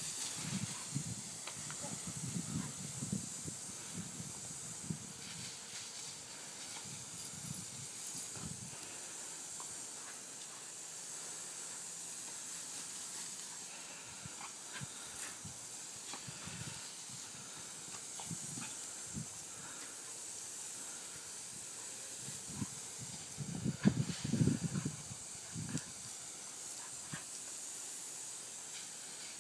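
Steady hiss of a garden hose spraying a fine mist of water, with irregular low sounds from a dog as it chases and snaps at the spray; the loudest of these come in a cluster near the end.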